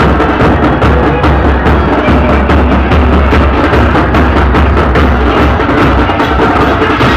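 Loud music with a heavy, booming bass and a steady percussive drum beat.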